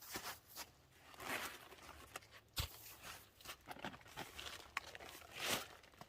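Footsteps and rustling scuffs of someone moving about, with one sharp knock about two and a half seconds in.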